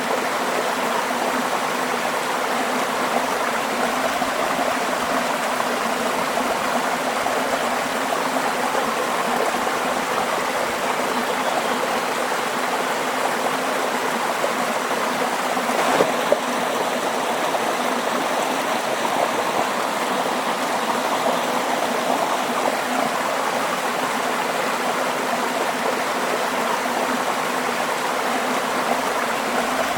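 Running stream water, flowing steadily, with two short clicks about halfway through.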